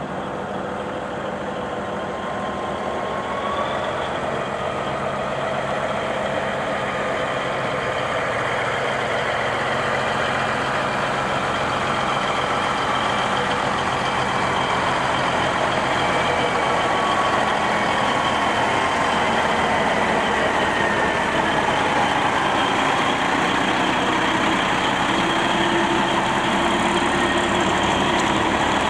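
Diesel semi tractor's engine running as the truck drives slowly by. It is steady and grows gradually louder, with a thin whine that drifts up and down in pitch.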